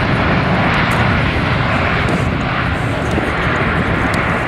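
Jet engines of a Boeing 787 airliner on landing: a loud, steady rush with a low rumble beneath.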